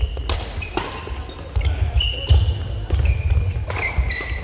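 Badminton rally: sharp racket strikes on the shuttlecock at intervals of about a second, with short high squeaks of court shoes on the sports-hall floor and a low rumble of footwork, echoing in the large hall.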